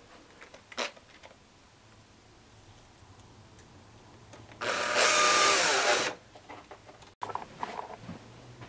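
Cordless drill driver running for about a second and a half, driving a screw into a brass hinge on a wooden box; its whine drops in pitch near the end as the motor slows. A few light knocks follow.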